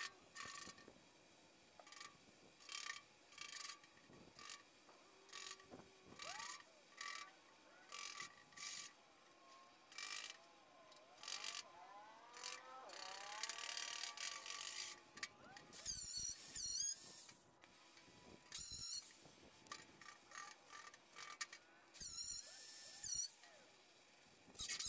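Hand tools working the steel dash panel: a run of short, sharp strokes about one a second, a steady hiss lasting a couple of seconds about halfway through, then warbling high squeaks near the end.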